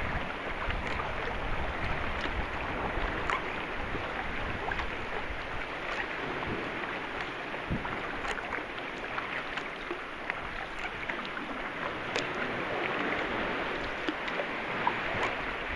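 Calm sea water lapping and trickling against a sea kayak's hull and the rock walls as the kayak glides along, a steady wash of water with small sharp drips and splashes every few seconds.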